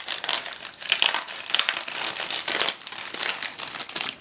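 Thin plastic polybag crinkling and crackling as it is handled and pulled open by hand; the sealed bag holds a plastic model kit's figure parts.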